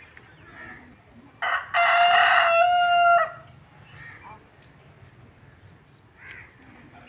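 Rooster crowing once, a loud cock-a-doodle-doo starting about a second and a half in and lasting about two seconds: a short first note, then a long held call.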